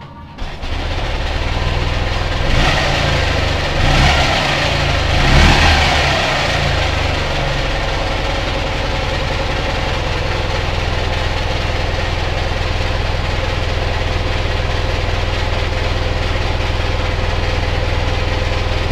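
Ural motorcycle's flat-twin engine revved in a few short blips during the first several seconds, then idling steadily.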